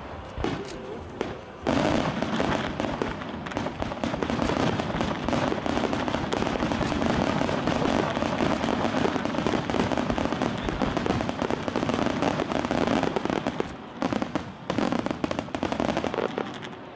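Starmine fireworks barrage: a dense, continuous run of aerial shell bursts and crackling that picks up about two seconds in. It thins out briefly near the end, then tails off.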